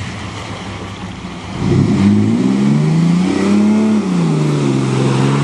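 Dodge pickup truck's engine running at a low, steady speed, then revving up sharply about a second and a half in as it pulls through mud in two-wheel drive. The pitch climbs, peaks, falls back and holds steady near the end.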